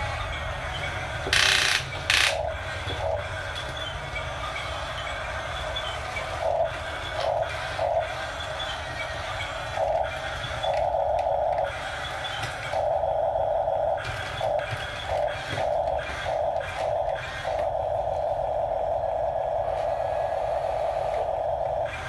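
Huina 1569 remote-control toy bulldozer's electric motors and gearboxes whirring in short stop-start runs as it drives its tracks and works its blade and ripper, then running steadily for the last few seconds. Two brief loud bursts of noise come about one and two seconds in.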